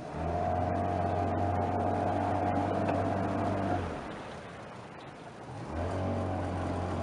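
Boat's outboard motor running at a steady pitch, cutting back at about four seconds and picking up again near the end.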